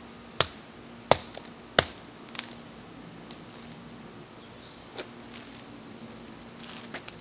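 Claw hammer striking a LiPo battery pack lying on concrete: three hard blows about two-thirds of a second apart, then a few lighter taps.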